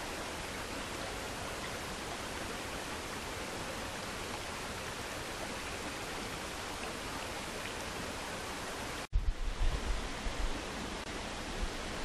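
Shallow stream running over a stony bed, a steady even hiss of flowing water. About nine seconds in the sound cuts out for an instant, then low, uneven rumbling thumps hit the microphone for a second or two.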